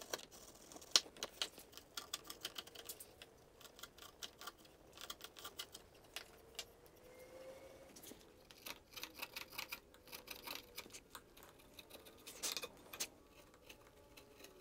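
Sharp chisel worked by hand across a curved wooden edge, shearing off fine shavings: a run of small crisp clicks and scrapes in uneven clusters, with a louder click about a second in and another burst near the end.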